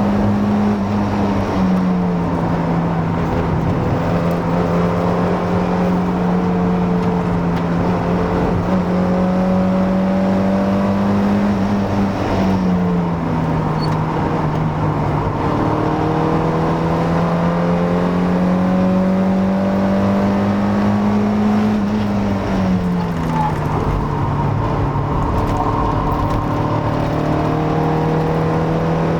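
Mazda MX-5 Miata NA 1.6 four-cylinder engine, with a K&N air filter and a near-stock exhaust, pulling steadily under way. Its note climbs slowly, then drops abruptly three times: about a second in, near the middle and about three-quarters through.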